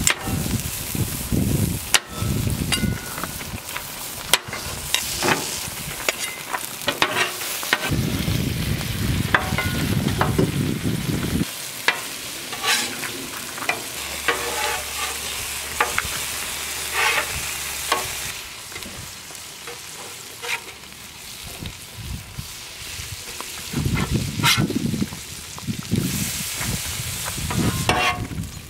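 Food sizzling on a hot flat-top steel griddle, with a metal spatula repeatedly clacking and scraping against the steel as it chops potatoes and turns scrambled eggs.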